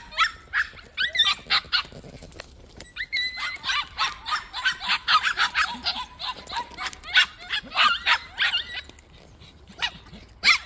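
Small white puppies yapping in quick runs of short, high-pitched yips, easing off briefly about two seconds in and again near the end.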